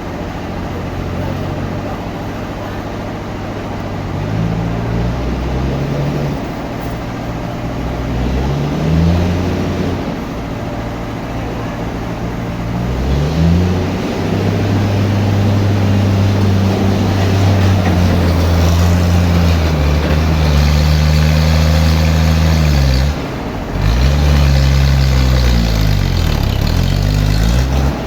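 An engine running under varying load, its speed rising and falling several times. It dips briefly about 23 seconds in and then picks up again.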